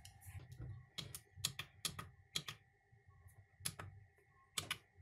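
Push buttons on an iMAX B6 LiPro balance charger clicking as they are pressed, about a dozen sharp, irregular clicks while a LiPo charge program is set up.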